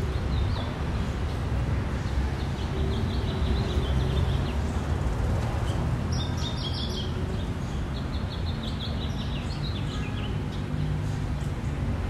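Park ambience: small birds chirping in several runs of quick trills over a steady low rumble of road traffic.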